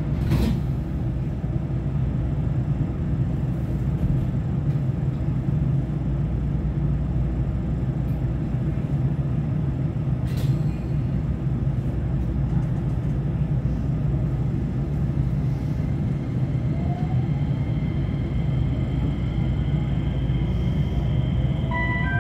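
JR West 227 series electric train heard from inside motor car KuMoHa 227-13: a steady low hum while standing at the platform, with a sharp click just after the start and another about ten seconds in. From about sixteen seconds in the train pulls away and the traction inverter's whine rises in pitch, with a second rising whine joining near the end.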